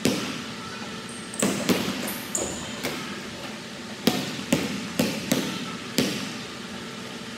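Basketball bouncing on a hardwood gym floor in an uneven dribble, about ten bounces, each echoing in the big hall.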